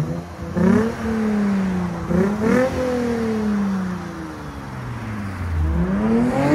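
2006 Lexus IS 250's 2.5-litre V6 free-revving through a J2 Engineering cat-back exhaust. It gives two sharp blips, about half a second and two seconds in, each sinking back slowly, then climbs again near the end and holds.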